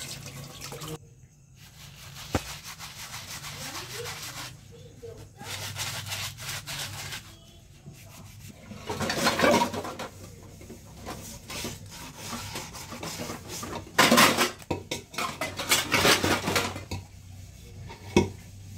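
Dishes being washed by hand: plastic and stainless steel vessels rubbed and scrubbed, with occasional knocks of steel pots against each other. The scrubbing comes in louder stretches about halfway through and again later on.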